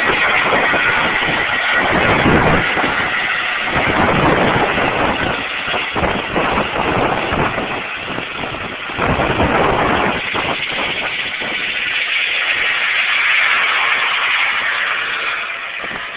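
Medical helicopter lifting off and climbing away: loud turbine and rotor noise with uneven low rumbles, fading over the last few seconds as it flies off.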